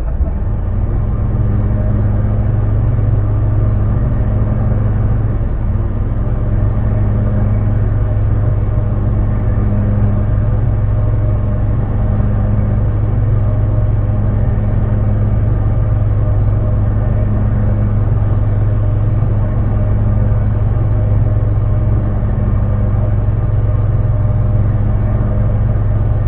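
Off-road vehicle's engine running steadily, a constant low drone heard from inside the cab.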